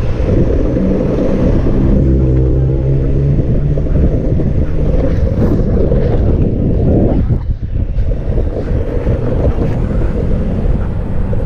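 Steady wind rumble buffeting the microphone of a camera moving along a street, with a motor hum in the first few seconds. The rumble drops briefly about seven seconds in.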